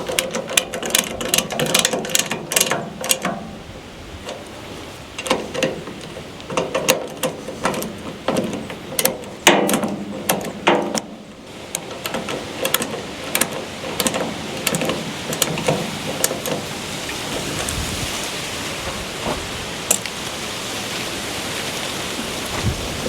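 Clicking and clanking of metal parts and hand tools being handled for about the first twelve seconds, including ratchet-like clicks. After that a steady hiss of rain takes over.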